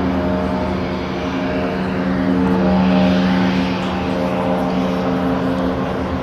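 Antonov An-70's four Progress D-27 propfan engines, with contra-rotating propellers, running as the aircraft climbs away after takeoff: a steady hum of several even tones over a rushing noise.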